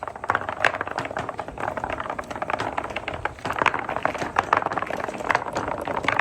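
Many marbles rolling and clattering down a marble run: a dense, continuous stream of small clicks over a steady rolling noise.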